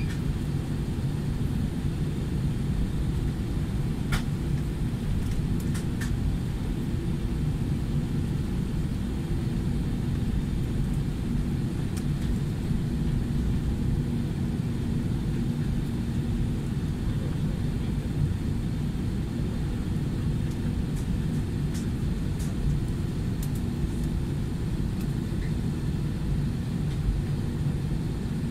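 Steady low rumble inside the cabin of an Airbus A320-200 as the airliner taxis with its engines at low power, with a few faint clicks.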